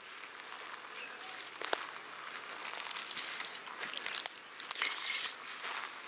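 Dry forest litter and plants crunching and rustling, in irregular bursts that grow louder from about three seconds in.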